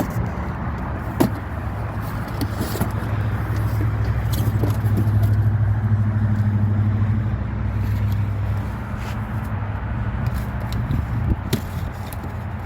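A motor vehicle engine running steadily, growing louder for a few seconds in the middle, with a few light clicks and taps over it.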